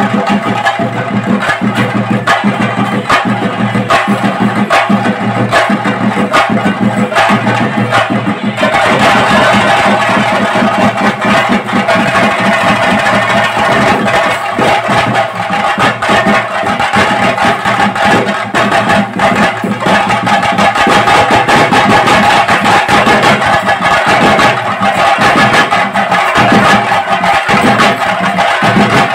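Chenda drum ensemble playing a fast, dense stream of stick strokes, with steady ringing tones held above the drumming. It grows fuller and brighter about a third of the way in.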